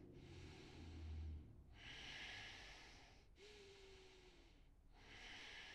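Faint, slow breathing of a person holding a standing forward fold: long breaths of about a second and a half each, with short pauses between.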